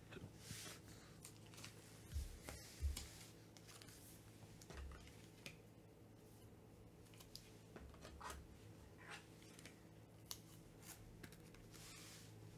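Faint handling of trading cards and a plastic card holder: light scrapes and small clicks scattered throughout, with a few soft thumps about two to three seconds in.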